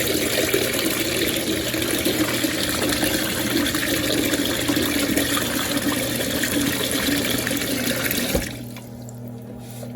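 Kitchen tap running hard, water splashing into the sink, then shut off about eight and a half seconds in.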